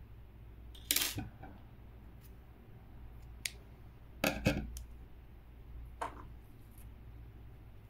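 Scissors handled and set down on a wooden tabletop beside a crocheted piece: a few short clicks and knocks, the loudest about a second in and again at about four and a half seconds.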